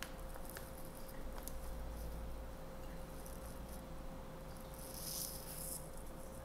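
Dry cookie-mix powder poured from a plastic pouch into a measuring cup: faint pouch crinkles and clicks, then a short hissy rustle of the mix about five seconds in, with a faint steady hum underneath.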